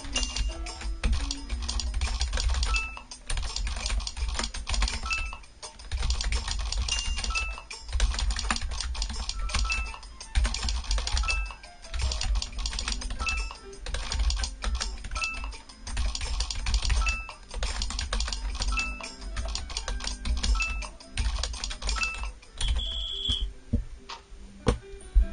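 Dense, fast clicking like keyboard typing, over background music, with short high beeps now and then.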